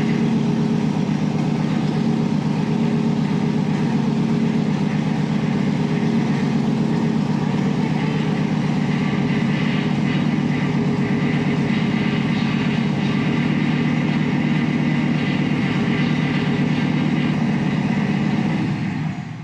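GMC cab-over truck's engine idling steadily, then shut off just before the end.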